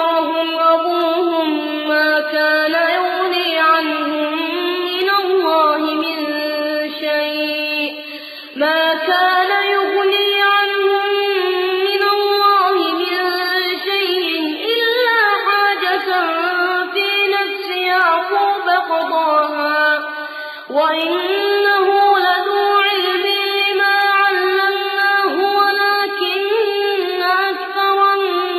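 Solo Quran recitation in a high voice, chanted melodically in long drawn-out phrases, with two brief breaks for breath about eight and twenty seconds in.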